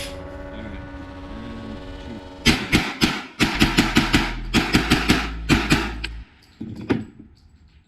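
Rapid pistol fire: about a dozen shots in quick succession over three and a half seconds, then a single shot a little later. A voice is heard briefly before the shooting starts.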